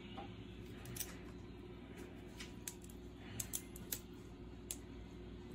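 Crab leg shells being cracked and snapped open by hand: a series of faint, sharp clicks and cracks, about eight, irregularly spaced.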